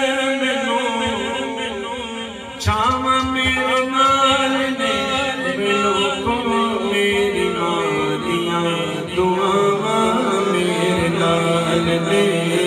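A man singing a naat, a devotional song, into a microphone, in long held notes that waver and slide in pitch. A new phrase comes in suddenly louder about two and a half seconds in.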